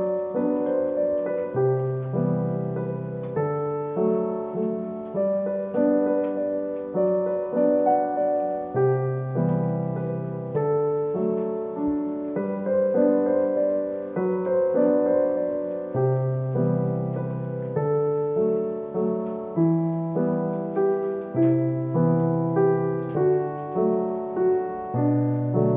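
Background piano music: a gentle melody of struck notes over low bass notes, the phrase repeating about every seven seconds.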